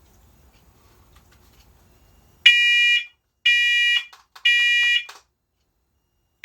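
First Alert Onelink smoke and carbon monoxide alarm sounding its smoke test. About two and a half seconds in it gives three loud, shrill beeps of about half a second each, evenly spaced, then pauses before the next set. This is the three-beep temporal pattern that signals smoke.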